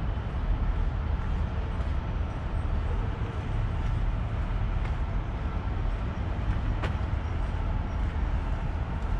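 Steady low rumble of city traffic, with a single sharp click about seven seconds in.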